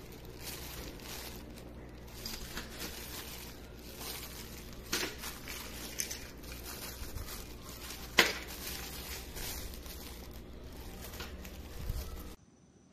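Thin plastic bags and tissue paper crinkling and rustling as small packaged items are handled and unwrapped, with a few sharp crackles, the loudest about eight seconds in. The rustling stops abruptly near the end.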